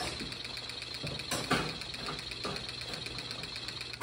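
Small vibration motor of a baby bouncer buzzing steadily with a fast, even rattle and a low hum. A brief louder rustle comes about a second and a half in.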